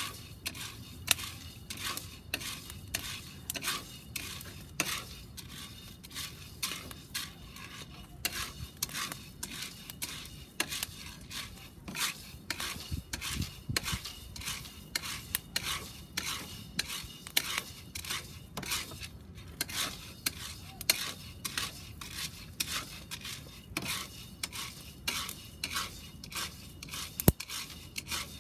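Wooden spoon stirring coffee beans as they roast in a round cast iron pan: the beans rattle and click against the iron and the spoon scrapes the pan, in irregular clicks several times a second.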